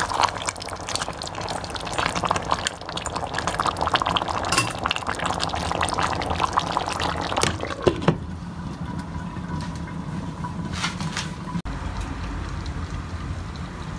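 Chicken curry bubbling and sizzling in the pan, a dense crackle of many small pops that drops to a quieter, steadier simmer about eight seconds in.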